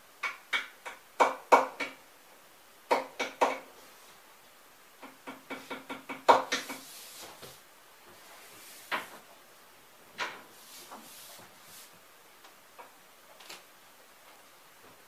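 Hands patting and pressing a panel down onto a cardboard furniture unit to set it on hot-glue dots: clusters of sharp, hollow-ringing knocks and taps in the first seven seconds, then a few scattered single knocks.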